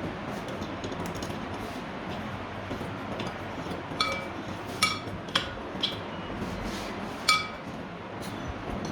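Sharp metallic clinks of metal striking metal, about five in the second half, each ringing briefly.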